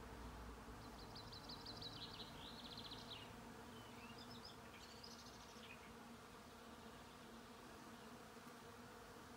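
Faint steady humming of many honey bees foraging on willow catkins, with high, rapid chirps over the first half.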